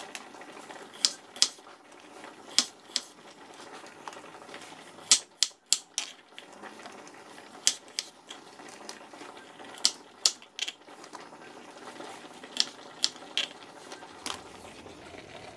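Kitchen knife chopping shallots and garlic on a wooden cutting board: irregular sharp knocks of the blade striking the board, often two or three close together, every second or two.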